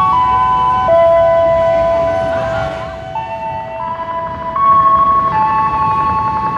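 A slow melody of held, steady electronic tones, two sounding together, stepping to new pitches every second or so, with a brief dip in loudness about halfway through.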